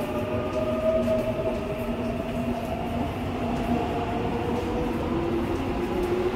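Seoul Subway Line 4 electric train moving along the platform: traction motors whining in several tones that slowly rise in pitch, over a steady low rumble.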